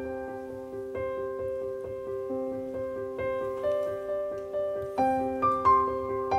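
Background piano music, single notes struck about twice a second.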